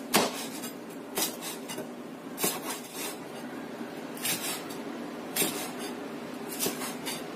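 Kitchen knife slicing a large red chilli on a cutting board: a sharp knock of the blade on the board about once a second, each followed by a few lighter taps.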